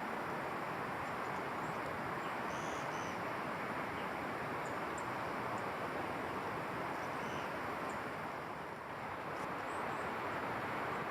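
Steady rushing outdoor background noise with a few faint, short high bird chirps, about two and a half and seven seconds in.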